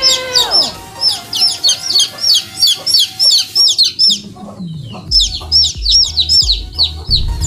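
Baby chicks peeping in a fast, steady string of short high cheeps, about four a second, with a brief break about three and a half seconds in. A gliding tone fades out in the first second, and a deep thumping music beat comes in about five seconds in.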